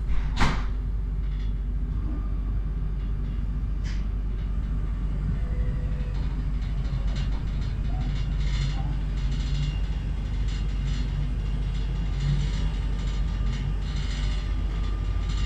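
Z 20500 double-deck commuter train heard from on board: a steady low rumble with a faint steady tone. There is a sharp knock about half a second in and a lighter one about four seconds in.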